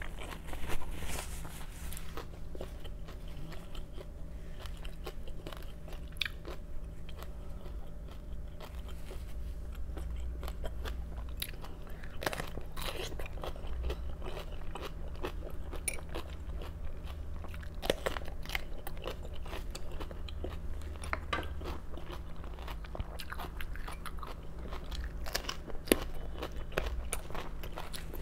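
Close-up eating sounds: raw vegetables being bitten and chewed, with many sharp, irregular crunches, over a steady low hum.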